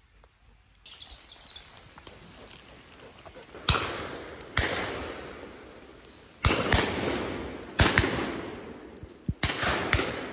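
Shotgun fire at a driven duck shoot: about eight sharp shots, singly and in quick pairs, each echoing away, starting a few seconds in.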